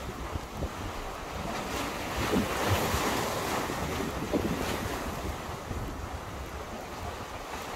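Wind buffeting the microphone over sea waves washing against concrete breakwater tetrapods, a steady rushing with a low rumble that swells a little about two to three seconds in.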